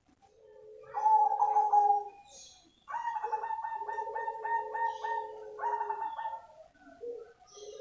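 Perkutut cemani (black zebra dove) cooing: a short phrase about a second in, then a longer run of quick, rapidly pulsed coos, and a few short notes near the end.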